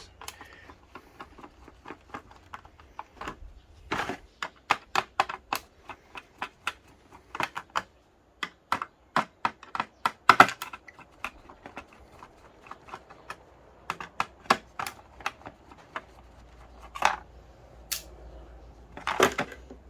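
Irregular clicks and taps of small parts and hand tools as the electronics of an exercise bike console are taken apart by hand, in quick clusters with short pauses.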